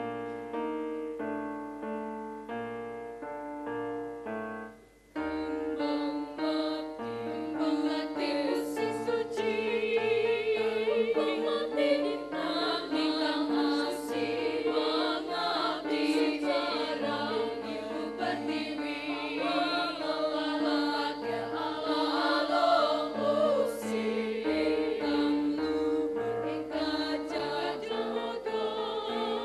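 A few seconds of piano chords alone, a brief break about five seconds in, then a female choir singing with piano accompaniment.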